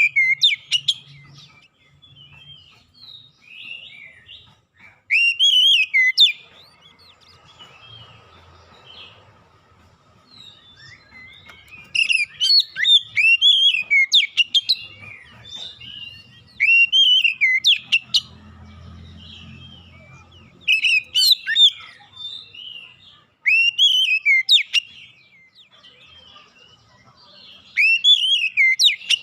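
Oriental magpie-robin (kacer) singing loud, clear whistled phrases in bouts every few seconds, with quieter gaps between; a lure song used to set a captive kacer singing.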